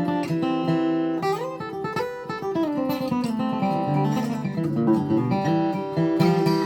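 Steel-string dreadnought acoustic guitar (red spruce top, Madagascar rosewood back and sides), strung with new Martin Luxe cobalt light-gauge strings, flatpicked in a bluegrass style. It plays a mix of single-note lines and strummed chords, with a few sliding notes.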